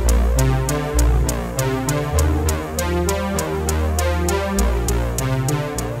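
Electronic background music: synthesizer notes over a changing deep bass line, with a steady beat of sharp ticks.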